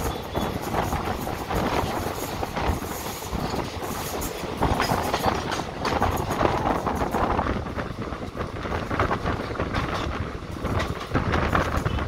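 Running noise of an ICF passenger coach on the move: steel wheels rumbling on the rails with irregular clicks and clatter from the track and coach.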